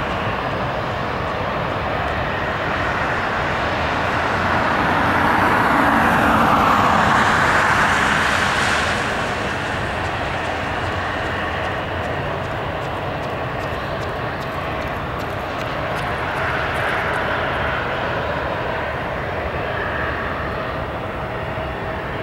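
The single turboprop engine and propeller of a Cessna 208B Caravan droning steadily as the plane climbs away. The sound swells between about four and nine seconds in, then settles back to a steady, more distant drone.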